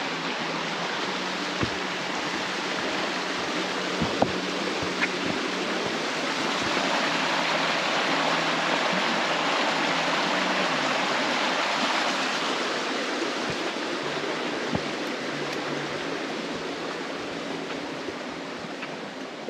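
Rushing water of a mountain stream, swelling louder toward the middle and easing off again, with a few sharp taps.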